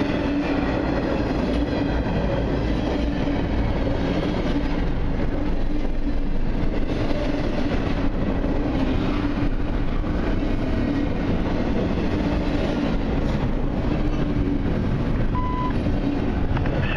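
Double-stack intermodal freight train's well cars rolling steadily past, a continuous rumble of steel wheels on the rails.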